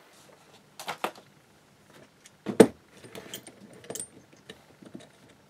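Steel V-block and its screw clamp being handled on the bench as a brass disc is clamped in it: scattered metallic clinks and knocks, with one much louder clunk about halfway through.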